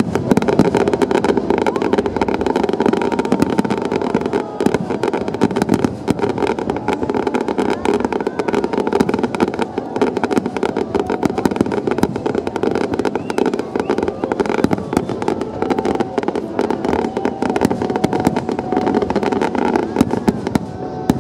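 Aerial firework shells bursting in a dense, rapid barrage: a continuous rolling series of bangs and crackles with no gaps.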